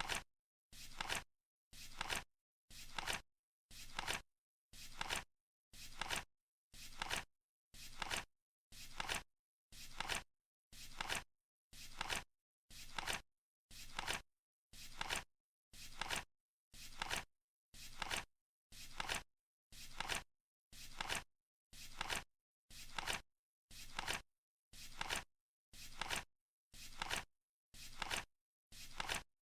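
Flip clock counting down, its cards flapping over once a second with a short papery flick each time, steady and even.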